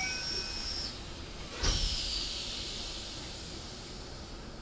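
Last note of a door chime, then the sliding doors of a Keikyu 1000-series train shutting with a thump about a second and a half in, followed by a hiss of air that falls in pitch and fades.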